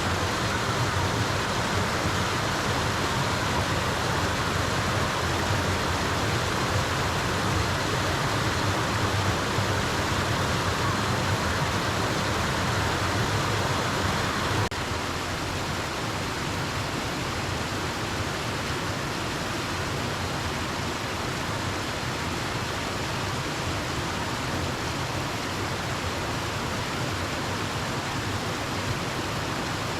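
Steady rush of falling and flowing water from the Pa La-u waterfall stream, an even hiss. It drops a little in level and changes character abruptly about halfway through.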